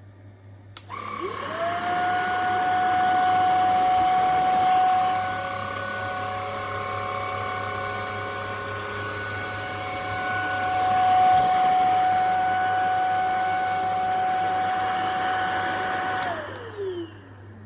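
Stanew 22.2 V 150 W cordless vacuum cleaner switched on: its motor whine climbs within a second to a steady pitch and runs for about fifteen seconds, swelling and dipping in loudness, then winds down in pitch as it is switched off near the end.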